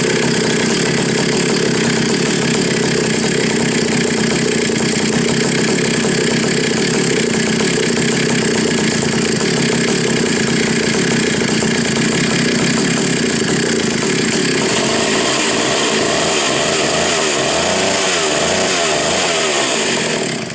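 Vintage McCulloch muscle chainsaw with a 103cc 193 motor and no muffler, running steadily and loud. In the last few seconds its pitch wavers up and down, then the sound cuts off abruptly.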